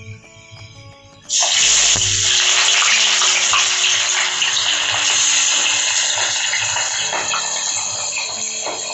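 Sliced onions dropped into hot oil in a kadhai, sizzling loudly and steadily as they start to fry. The sizzle starts suddenly about a second and a half in and fades only slightly.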